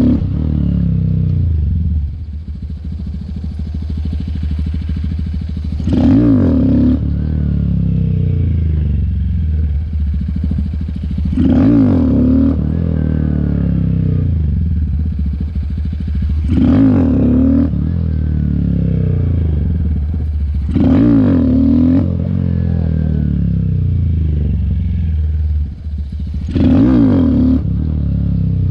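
Honda Grom's single-cylinder motorcycle engine running, revved up sharply five times at roughly five-second intervals and easing back down between surges, as it is pushed into wheelies on a worn clutch.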